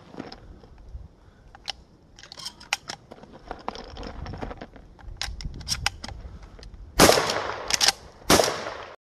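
Shotgun shells being loaded into a pump-action shotgun's magazine tube, a string of small metallic clicks. Then two loud shotgun shots about a second and a quarter apart, with a short sharp clack of the pump being worked between them. The sound cuts off suddenly near the end.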